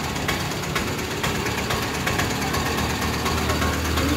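Engine of a small vehicle running as it is ridden, with frequent small rattles and knocks. A steady low hum comes up about three seconds in.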